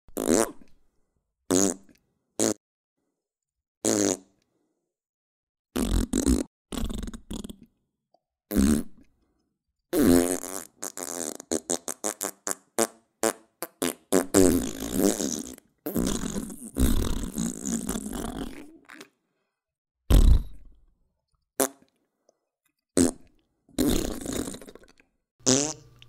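A string of fart sounds: short separate blasts with silent gaps between them, and a longer sputtering run of quick pulses in the middle.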